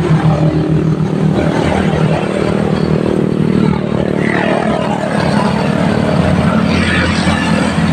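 Motorcycle traffic passing close by on the road, a steady engine drone.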